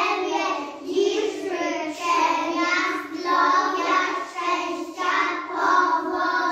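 A group of young children singing a song together in unison, in short phrases about a second long.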